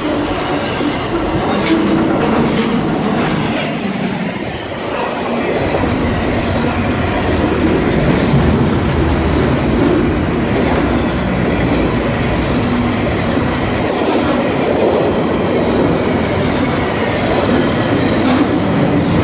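An intermodal freight train's container and trailer cars rolling past, with steel wheels clicking over the rail joints above a steady rumble.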